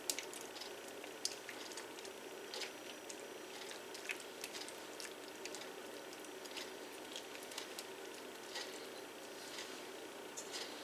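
Soft squishing with small scattered taps as fingers press and spread a thick, creamy broccoli-and-cheese mixture in a glass baking dish, over a faint steady hiss.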